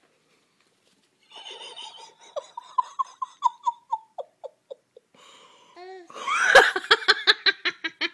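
High-pitched laughter: a run of short laughs, about four a second, starting about a second in, then breaking into a louder, faster burst of laughing about six seconds in.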